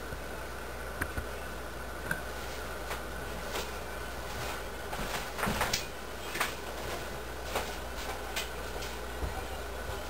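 Wild turkey poults foraging: scattered short clicks and rustles of pecking and scratching in garden litter and on wooden bed edging, about one a second with a small cluster five to six seconds in, over a steady background hiss.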